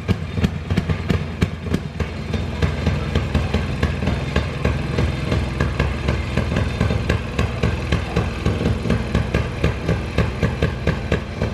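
Small engines of railway speeders (track motor cars) running at idle, with a steady beat of about four pulses a second.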